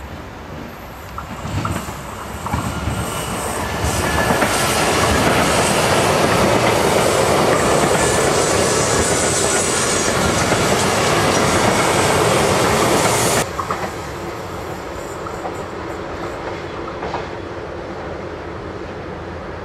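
Fertagus Class 3500 double-deck electric multiple unit approaching and passing close by, its wheel and rail noise building to a loud rush. The sound drops suddenly about thirteen seconds in to a quieter steady background.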